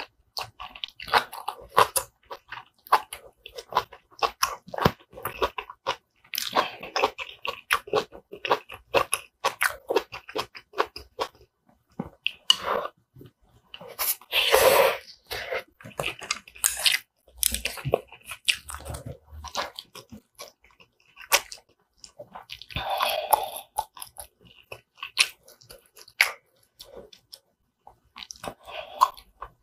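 Close-miked chewing and biting of braised kimchi and rice: a dense run of short wet clicks, smacks and crunches, with a longer, louder mouth noise about halfway through and another about two-thirds in.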